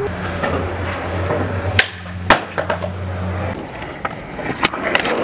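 Skateboard wheels rolling on hard, smooth ground, a steady low rumble, with sharp clacks of the board hitting the ground about two seconds in and again near the end.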